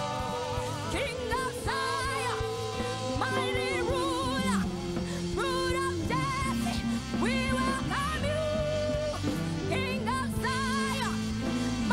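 Live worship music: a woman sings long notes with vibrato into a microphone over an electric guitar and keyboard.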